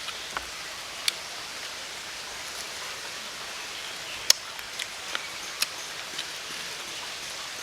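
Steady rushing of a mountain valley stream, with a few sharp clicks over it, the loudest about four seconds in.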